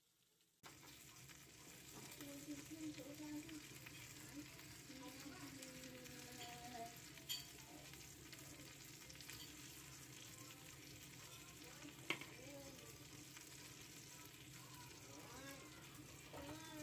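Leg of mutton sizzling in hot oil in a grill pan, starting abruptly about half a second in, with two sharp clicks of metal tongs against the pan.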